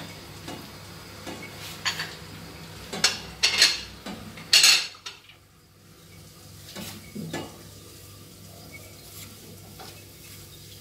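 Wooden spoon knocking and scraping against a small bowl and a stainless steel pot as garlic is scraped in and diced chicken and onion are stirred, over a soft sizzle. A handful of sharp knocks come in the first five seconds, the loudest about four and a half seconds in, followed by quieter stirring with a couple of lighter taps.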